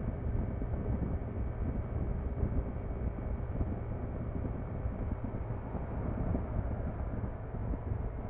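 Yamaha NMAX scooter's single-cylinder engine and CVT running at a steady expressway cruise of around 85 km/h, mixed with wind noise and tyre roar on the road. The sound stays even, with no change in revs.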